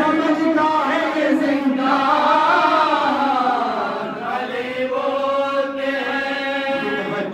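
Unaccompanied Urdu devotional chanting for Muharram: a lead reciter sings into a microphone while the men beside him join in on the long held notes. The phrases are drawn out, with a slow rise and fall of pitch in the middle.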